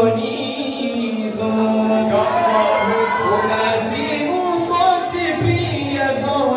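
A man chanting in a sung, melodic voice into a handheld microphone, with long held notes that glide up and down.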